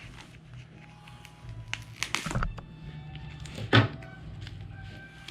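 Handling noise from a boxed trading-card set: a few light knocks and a rustle, then one loud thump about four seconds in.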